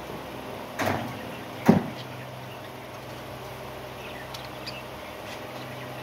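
Two sharp knocks close together near the start, the second the louder, over a steady low hum, with a few faint budgerigar chirps later on.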